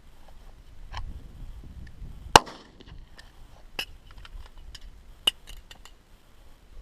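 A series of sharp clicks and knocks, the loudest a single crack about two and a half seconds in, over a low rumble.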